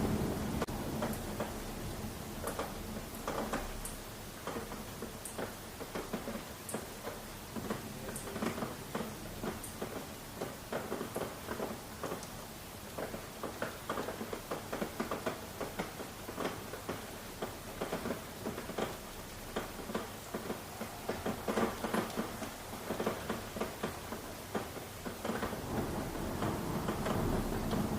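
Steady rain with many individual drops pattering. A low rumble of thunder fades away after the start and builds again near the end.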